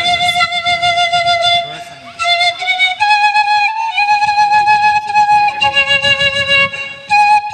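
Background flute music: a slow melody of long held notes, with a brief pause about two seconds in.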